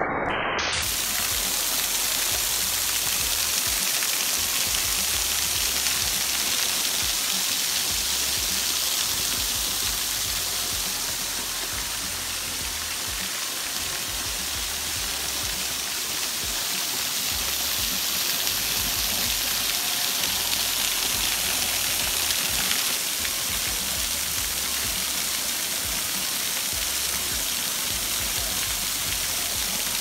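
Waterfall pouring down a rock face onto stones and a shallow pool: a steady rushing hiss of falling water.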